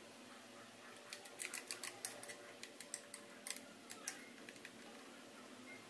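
Metal spoon clinking and scraping against a plate while stirring melted chocolate: a run of quick, irregular clicks from about a second in until about four and a half seconds in.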